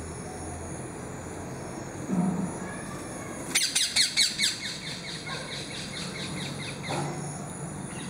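Rose-ringed parakeet giving a rapid burst of about eight shrill calls, lasting about a second, a little over three seconds in. A low thump comes shortly before the calls.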